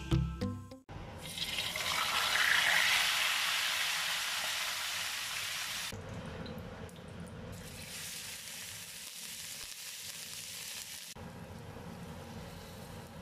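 Hot cooking oil sizzling in a stainless steel wok as sliced shallots fry. The hiss is strongest in the first few seconds and quieter later, with abrupt shifts where the footage is cut. Background music ends about a second in.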